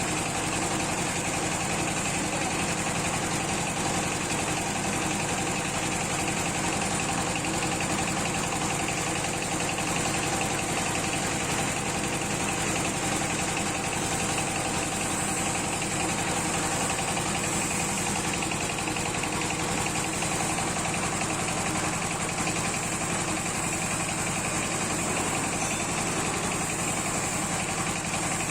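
Mustard-oil pressing machine running steadily while pressing mustard seed: a continuous mechanical drone with a fast, even low pulsing.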